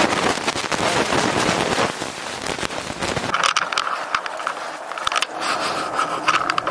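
Crackling and scraping handling noise as the camera is picked up and carried, then, about halfway in, a home-built two-wheel-drive electric fat-tire bike riding off: a steady, high motor whine over light rattles and clicks.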